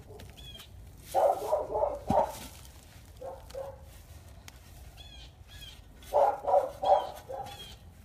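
A dog barking in two volleys of several quick barks, one about a second in and another about six seconds in, with a couple of softer barks between them.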